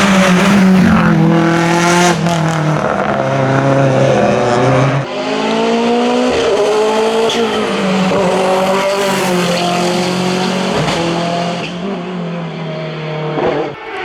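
Hillclimb racing car engine at high revs under hard acceleration. The engine pitch holds, then jumps with each gear change, and the sound changes abruptly about five seconds in.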